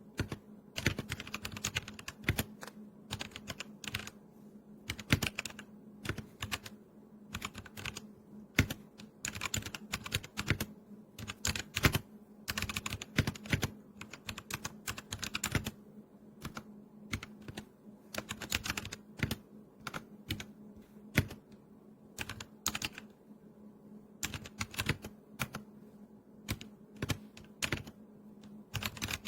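Typing on a mechanical keyboard: rapid, irregular key clacks in bursts with short pauses, over a faint steady hum.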